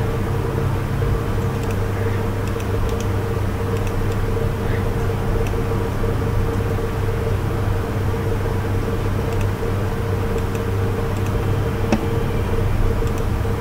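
Steady low mechanical hum, like a fan or motor, with a few faint mouse clicks scattered through it.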